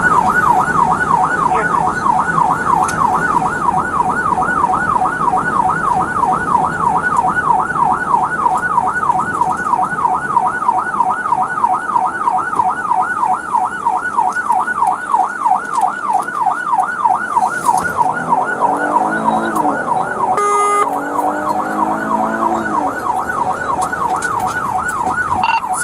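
Police car siren on the fast yelp setting, warbling quickly up and down about three times a second. A short beep cuts in about twenty seconds in.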